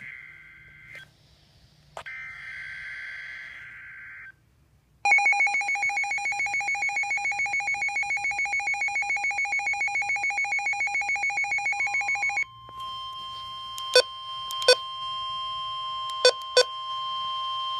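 Emergency Alert System tones for a high wind warning: two short buzzy data bursts in the first few seconds, then a loud, fast-pulsing alert tone for about seven seconds, then a steady single tone broken by four sharp clicks.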